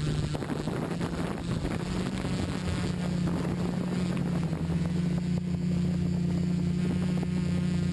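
Multicopter's electric motors and propellers spinning up, the hum rising a little in pitch and level over the first couple of seconds, then holding a steady drone.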